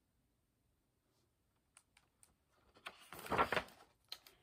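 Pages of a hardcover picture book being handled and turned: a few faint clicks, then a short rustle of paper about three seconds in.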